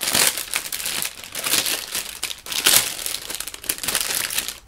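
Clear plastic wrapping crinkling in the hands as a packaged item is unwrapped, in irregular surges with no steady rhythm.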